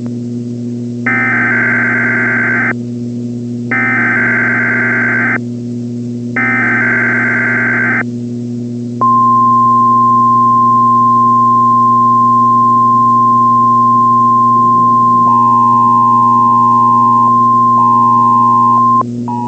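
Weather radio emergency alert signal. Three short bursts of screeching SAME digital header data come about a second apart, then the single-pitch warning alarm tone sounds steadily for about ten seconds, with lower tones joining it for the last few seconds, all over a steady hum. The alert introduces a blizzard warning.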